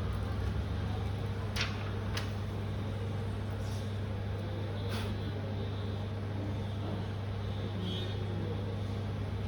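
Steady low machine hum, with a few faint clicks and taps.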